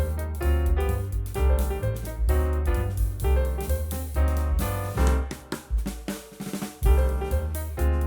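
Background music with a drum-kit beat and piano.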